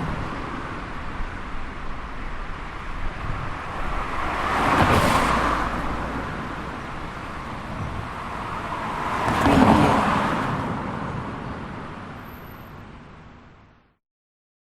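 Traffic on a fast road: a steady rush of passing vehicles, with two loud pass-bys swelling and fading about five and ten seconds in. The sound then fades out near the end.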